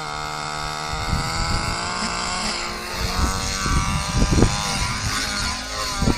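Align T-Rex 700 Nitro RC helicopter's two-stroke glow engine running at high revs with its rotor turning as the helicopter lifts off and climbs away. From about three seconds in, gusty low rumbles buffet the microphone.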